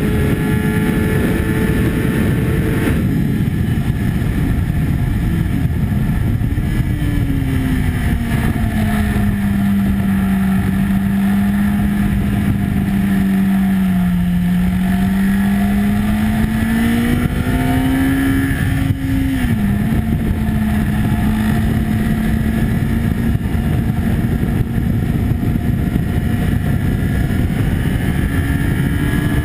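Sport motorcycle's engine heard onboard at track speed under heavy wind noise on the camera microphone. The engine note falls about three seconds in as the bike slows for a corner, holds low through the bend, climbs again, drops sharply once at about two-thirds of the way through as the rider shifts up, then climbs slowly.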